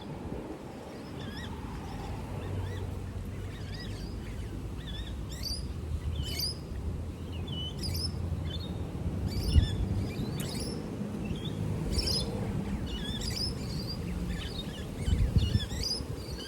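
Small birds chirping: many short, quick chirps and calls in irregular succession, over a steady low rumble.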